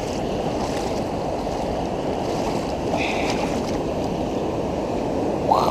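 Steady rush and lapping of river water right at the microphone, with the GoPro held at the water's surface. Near the end comes a brief voice-like sound that rises and falls.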